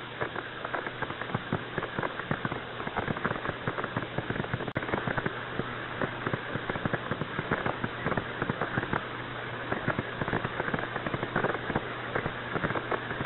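Crackling static on a narrow radio communications channel: a steady hiss thick with short clicks and pops, over a low steady hum.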